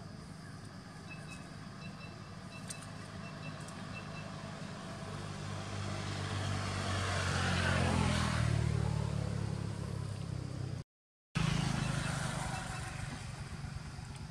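A motor vehicle passing by: a low engine hum that swells to its loudest about eight seconds in and then fades. The sound cuts out completely for a moment about eleven seconds in.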